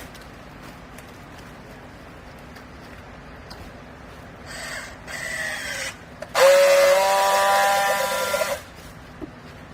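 Rags baler machinery: a steady low hum of the running machine. About four and a half seconds in comes a shorter hiss with a falling whine, then about two seconds of a loud hissing whine that cuts off suddenly.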